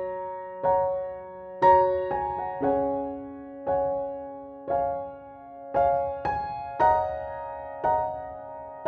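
Slow piano music: notes and chords struck about once a second, each ringing and fading away.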